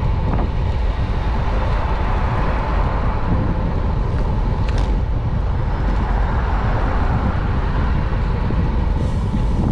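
Steady city-street noise heard from a moving bicycle: traffic going by with a heavy rumble of wind on the microphone, and a brief high squeak about five seconds in.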